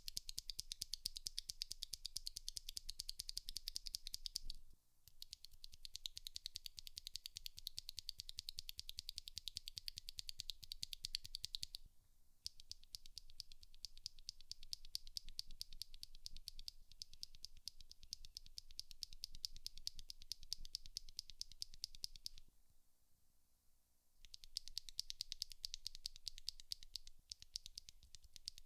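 Tactile mechanical keyboard switches pressed and released in quick succession, in four separate runs with short pauses between as the switch is changed. The runs are stock Kailh Polia, stock Poli Panda (Polia stem in a YOK Panda housing), lubed and filmed Poli Panda, and stock Holy Panda.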